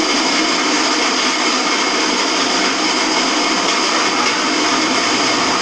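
Electrolux LTE06 washing machine in its spin cycle, running with a loud, steady noise from the drum and drive: the abnormal spin noise that is the machine's fault.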